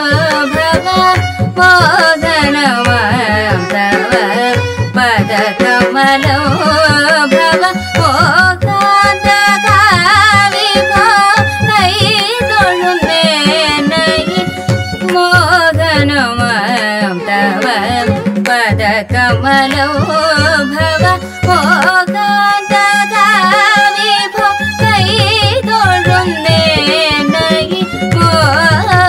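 Carnatic kriti in ragam Saramati, Adi talam: a sung melody with violin, full of sliding, oscillating ornaments, over rhythmic mridangam strokes.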